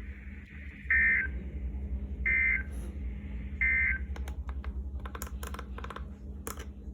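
Three short bursts of weather-radio EAS/SAME data tones, each about a third of a second and about a second and a half apart: the end-of-message signal that closes a NOAA Weather Radio warning. Under them runs a steady receiver hum, and a series of sharp clicks follows in the second half.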